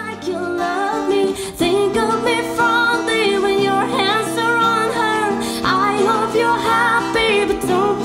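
A song playing: a singing voice over an instrumental backing with held bass notes.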